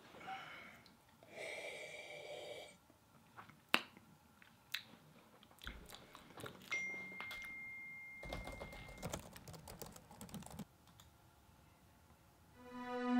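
Scattered, irregular clicks of a computer keyboard and mouse, with a thin steady tone held for about two seconds in the middle.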